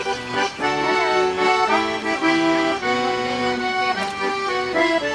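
Accordion playing a traditional folk dance tune: a melody over sustained chords, with the notes changing in steady steps.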